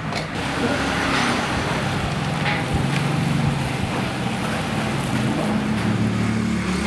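Steady street background noise: a continuous traffic hum with a low drone and a few light clicks and knocks.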